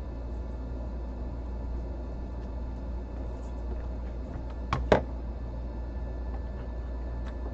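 Steady low hum with two sharp clicks in quick succession about five seconds in.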